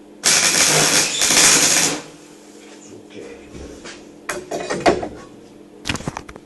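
MIG welding arc crackling for about two seconds, then stopping, over the welder's steady hum. A few short knocks follow near the end.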